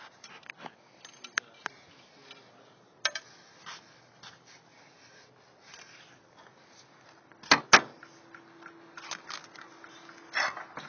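Slate roof repair work: scattered sharp clicks and taps of hard objects, with two loud knocks in quick succession about seven and a half seconds in.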